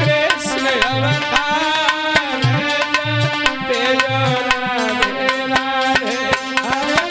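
Instrumental passage of a Hindi devotional bhajan: a melody line with gliding, bending notes over a steady tabla-style hand-drum beat with deep bass strokes.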